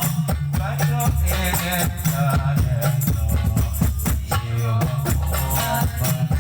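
A male singer's voice over music with sustained low bass notes and a steady shaker-like percussion rhythm.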